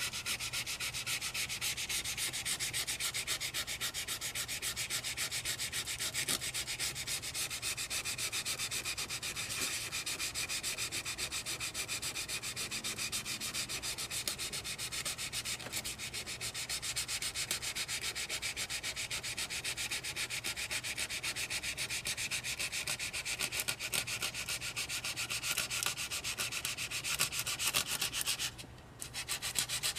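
Sandpaper rubbed by hand in steady strokes over the steel plate of an old E.C. Atkins handsaw, scouring rust off near the tooth line. The scraping pauses briefly near the end.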